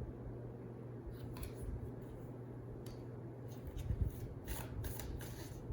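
Tarot cards being handled and shuffled: a few separate soft flicks, then quicker, denser card riffling from about halfway through, over a low steady hum.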